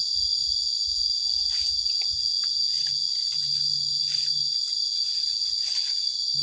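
A steady, high-pitched chorus of insects calling without a break, with the soft, irregular steps of people walking through leafy undergrowth underneath.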